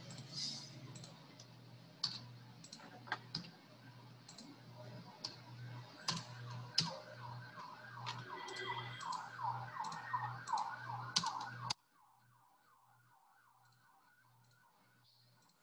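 Computer mouse clicks and keyboard taps, sharp and scattered, as an equation is edited on screen. Under them runs a faint warbling tone that repeats about twice a second and cuts off suddenly about twelve seconds in.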